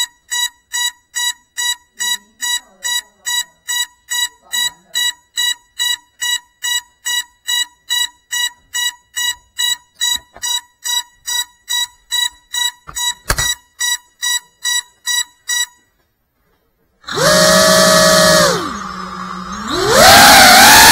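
GEPRC CineLog35 FPV quadcopter beeping steadily at about two and a half beeps a second while it sits on the ground, the beeper's signal of a powered but unarmed quad. The beeping stops. About a second later the brushless motors spin up with a rising whine, dip back briefly, then rise again as it takes off.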